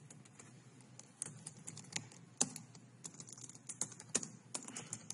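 Computer keyboard being typed on: irregular key clicks, sparse at first and coming thicker from about a second in.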